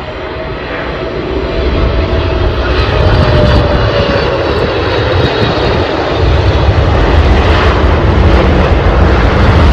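Jet engines of a twin-engine wide-body airliner landing and rolling out on the runway: a steady roar that grows louder over the first few seconds, with a deep rumble and a faint, slowly falling whine.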